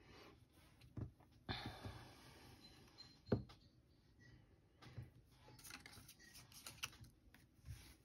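Quiet handling of card craft pieces on a tabletop: a short rustle about a second and a half in, a single sharp tap a little past three seconds, then scattered light clicks and taps.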